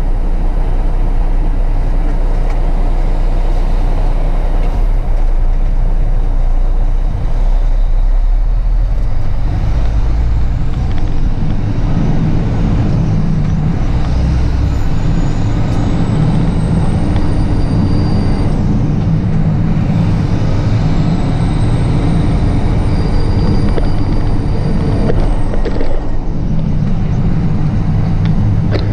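Semi-truck diesel engine running under way, heard inside the cab, its drone changing pitch a few times as the driver shifts gears. A thin high whistle rises and holds twice in the second half.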